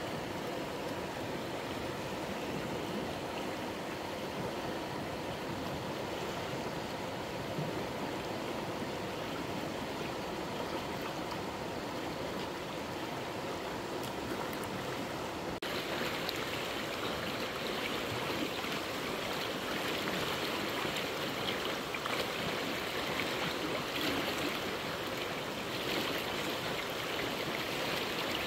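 Fast-flowing stream water rushing steadily. About halfway through, the sound changes abruptly to a brighter, harsher rush.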